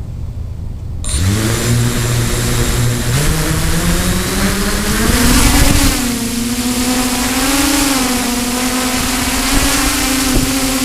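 Motors of a remote-controlled aircraft spinning up about a second in, their pitch rising over the next few seconds and then holding with small wobbles as they work against the wind, over a low wind rumble on the microphone.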